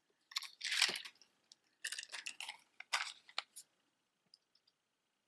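Costume earrings being handled: three short bouts of crinkly rustling with light clicks, one right at the start, one about two seconds in and one about three seconds in.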